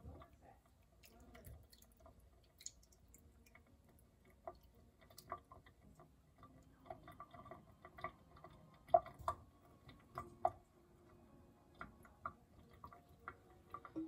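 Silicone spatula scraping and tapping against a stainless steel saucepan and mesh strainer as ricotta curds and whey are poured out: an irregular run of light clicks and small metallic taps, with wet dripping. A few louder taps come past the middle.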